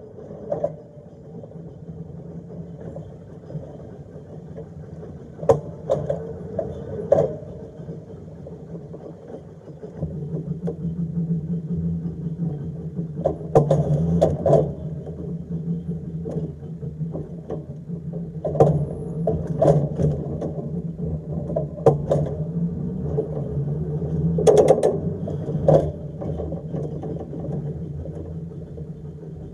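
Electric tram running along narrow-gauge track: a steady motor hum, with sharp wheel clacks over the rail joints and points, often in quick pairs. It grows louder about ten seconds in.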